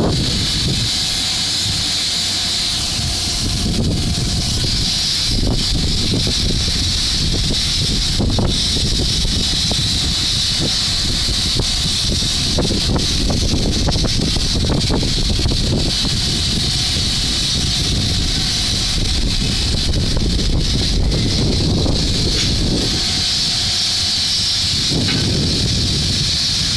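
JNR Class C58 steam locomotive C58363 standing with steam hissing steadily, over a low rumble that swells and fades.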